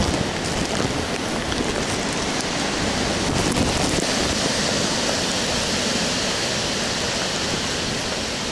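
Hurricane wind blowing hard through trees with rain, a steady rush that swells about halfway through, with wind buffeting the microphone.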